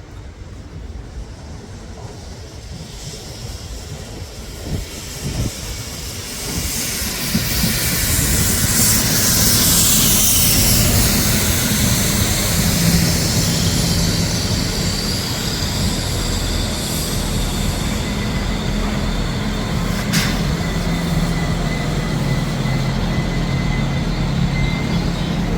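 Diesel passenger train arriving at a platform. It grows louder from about a quarter of the way in, with wheels and brakes squealing as it slows, then a steady low engine hum as it stands.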